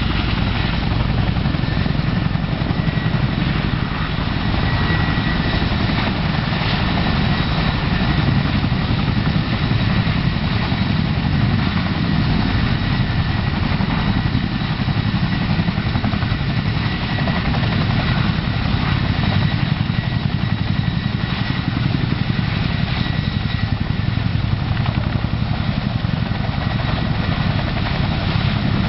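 CH-47 Chinook tandem-rotor helicopter running close by, its twin turbine engines and two rotors lifting it off the pad and holding it in a low hover. A steady loud rotor and engine noise with a thin high turbine whine over it.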